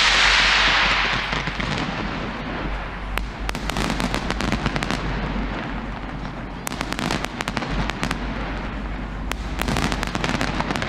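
Sydney Harbour New Year's Eve fireworks going off: a loud hissing, crackling burst in the first second or so, then a steady stream of sharp pops and bangs.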